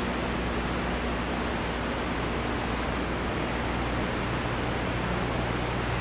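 A steady, even hiss with a faint low hum beneath it, the noise of an old, worn soundtrack; no distinct engine or event stands out.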